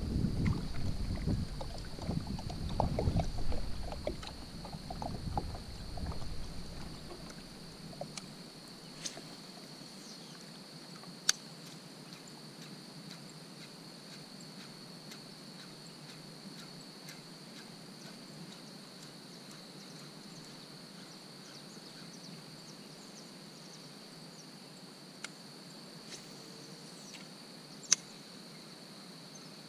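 Kayak on the water: low rumbling noise from the hull and its movement for the first several seconds, then it falls quiet to a steady high-pitched hum, broken by two sharp clicks.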